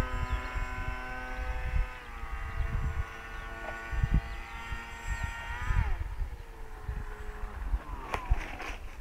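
Depron RC Su-37 model jet's motor whining in flight. Its pitch steps down twice as the throttle is eased back, then slides down and dies away as the model comes in to land. Wind rumbles on the microphone throughout, and a few sharp clicks come near the end.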